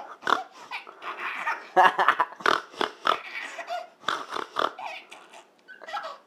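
Repeated snorting through the nose, a string of short snorts about two or three a second with a brief lull near the end.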